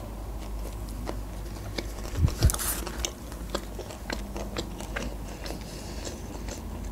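A person biting into a burrito and chewing it with her mouth closed: many soft, wet mouth clicks, with one louder noise about two and a half seconds in.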